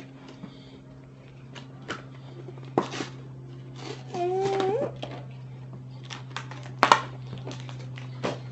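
Scattered clicks and knocks from plastic toy trains and their storage case being handled, the loudest about seven seconds in. A short whine rises at its end about halfway through, over a steady low hum.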